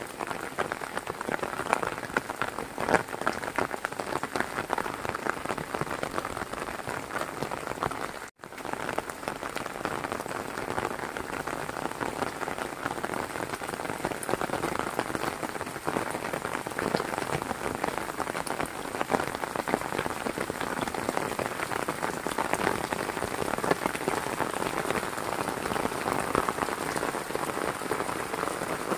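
Heavy rain falling, a dense, steady patter of drops. The sound cuts out for an instant about eight seconds in.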